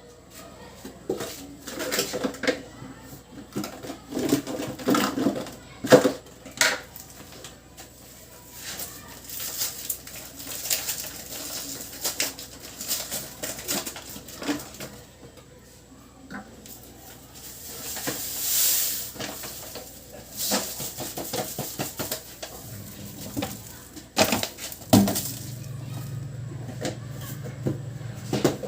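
Kitchen utensils and dishes clinking and knocking, many separate taps and clatters, while a lemon sugar syrup is being made. A short swelling hiss comes about two-thirds of the way in, and a low steady hum sets in near the end.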